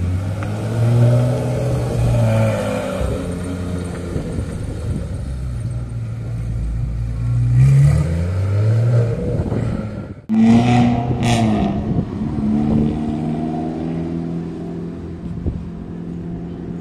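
Porsche 911 GT3 RS's naturally aspirated flat-six engine pulling away at low speed, its revs rising briefly about eight seconds in. After a sudden cut about ten seconds in, another Porsche's engine runs and pulls away.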